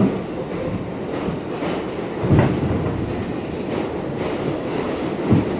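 Subway train running, heard from inside the car: a steady rumble of wheels on the track, broken by a few heavy low thumps.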